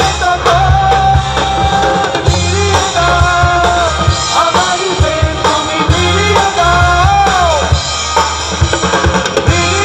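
Live band music over a PA system, with a drum kit and bass drum keeping a steady beat under a melody line of held notes that slide between pitches.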